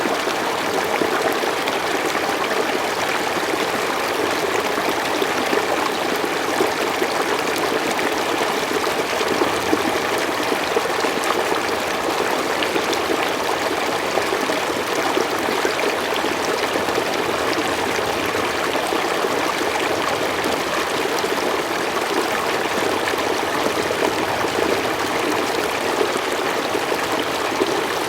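Forest stream flowing steadily over rocks, a continuous rush of running water with trickling.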